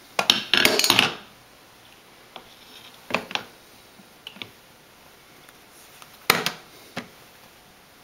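Plastic parts of a drip coffee maker being handled: a rattling clatter of the lid in the first second, then a few separate sharp clicks and knocks as the carafe and its lid are touched and moved.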